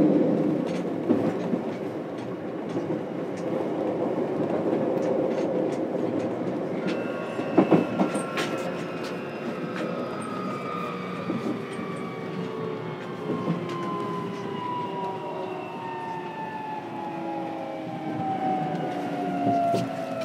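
Running sound heard inside a JR Kyushu 303 series motor car: wheels on rail with a few sharp rail-joint clicks. From about seven seconds in, the Toyo IGBT VVVF inverter whines in several tones that glide steadily down in pitch as the train slows.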